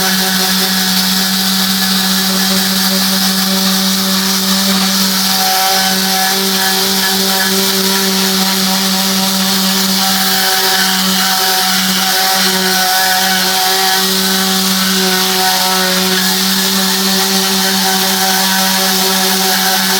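Tornador compressed-air cleaning gun running: a loud, steady hiss of air with a buzzing hum under it. It holds a steady pitch throughout.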